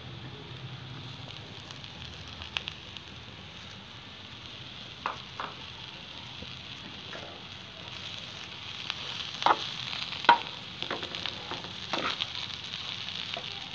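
Cubed potatoes and sliced red onion frying in oil in a pan, a steady sizzle that grows louder from about halfway through as the onions are stirred in. A spatula scrapes and knocks against the pan now and then.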